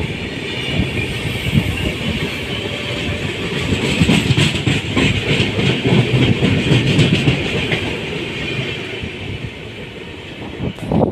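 Train rolling on the rails: a steady rumble and hiss, with the wheels clacking over rail joints in the middle stretch.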